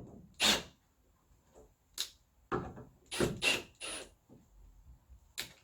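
Irregular sharp knocks and clacks, about seven in a few seconds, as baby safety gate fittings and tools are handled and set down during mounting.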